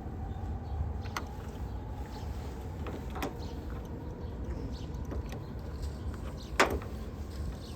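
A few sharp clicks and knocks, the loudest about six and a half seconds in, over a low steady rumble.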